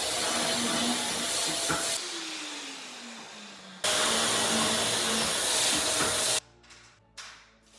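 Festool dust extractor sucking through a hose on a drilling jig while a Festool cordless drill bores into MDF board. The noise fades about two seconds in with a falling whine as it winds down, starts again abruptly a little before four seconds in, and cuts off at about six and a half seconds.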